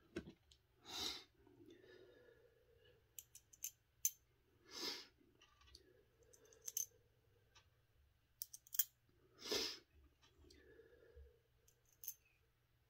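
Scattered light clicks and ticks of small plastic and metal parts and a hand tool as a Traxxas Drag Slash transmission is taken apart, with three short hissy noises about four seconds apart.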